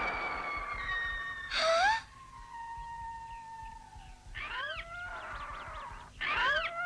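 Animated-cartoon soundtrack: held background music tones, a short loud shriek with a rising pitch about a second and a half in, then a monkey crying out in two wailing calls, near the middle and at the end, as a mother monkey grieving for her stolen baby.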